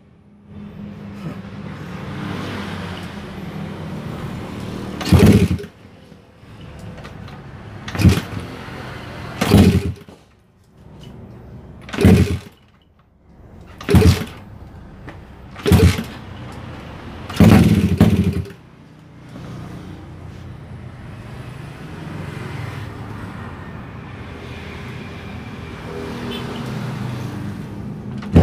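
Suzuki Satria FU drag bike's high-compression engine, bored out with a 70 mm piston, being kick-started and firing in loud, sharp bangs, about seven of them roughly two seconds apart, typical of a hard-starting high-compression engine that kicks back and backfires flame from the open exhaust. After the last bang it runs on more steadily and more quietly.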